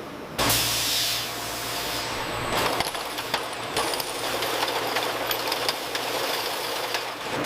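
Factory machinery running: a steady low hum under a hiss, with many scattered sharp clicks, starting suddenly just under half a second in.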